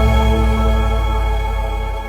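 Background music: a held, ambient chord of steady tones that slowly fades.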